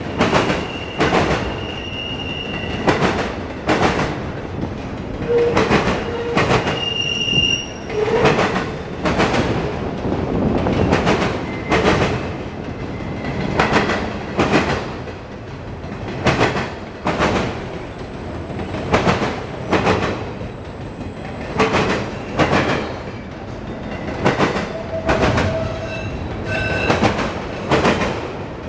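Autorack freight cars of a CSX train rolling past, the wheels clicking over rail joints in a steady rhythm over a constant rumble. A few short high-pitched wheel squeals come in a couple of seconds in, again near seven seconds, and near the end.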